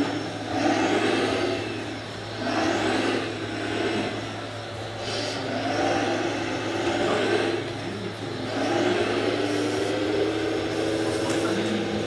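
Radio-controlled scale hydraulic excavator (Volvo model) running its hydraulics, the whine rising and falling in surges every second or two as it swings, dumps soil into a tipper and digs again.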